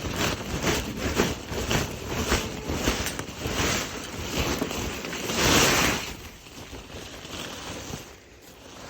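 Dry hay scraps rustling and crackling as they are moved about, with a louder rush about five and a half seconds in, then quieter.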